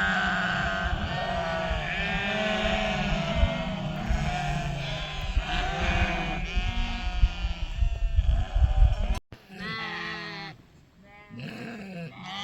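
A flock bleating, with many overlapping calls over a low rumble. About nine seconds in the sound cuts off abruptly, and quieter bleats carry on after it.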